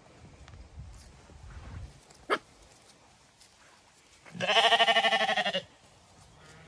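A Zwartbles sheep bleats once, a loud wavering call just over a second long, about four seconds in. Earlier, around two seconds in, there is a single short high yip.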